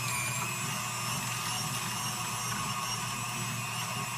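KitchenAid 5-quart stand mixer running steadily with a whine, driving the FGA food grinder attachment as it grinds beef fed into it.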